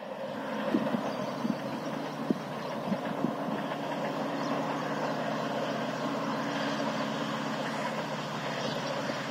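Diesel locomotive engine running steadily in the distance as a passenger train approaches.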